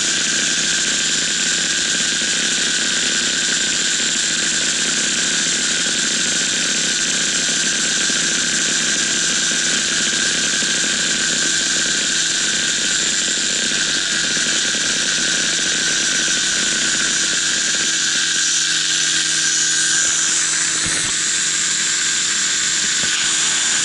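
Paramotor engine and propeller running at a steady pitch in flight: a constant drone with a high whine over it.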